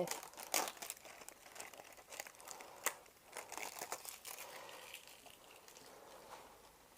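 Packaging being handled and crinkled, with sharp rustles and clicks over the first three seconds, then fainter, sparser rustling.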